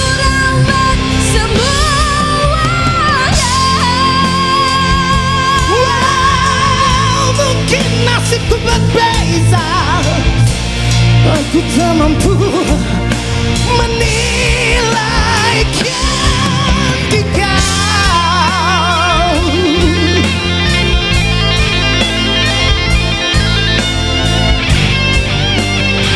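Rock band playing an instrumental break in a Malay rock ballad: an electric guitar lead of bending, wavering notes over bass and drums.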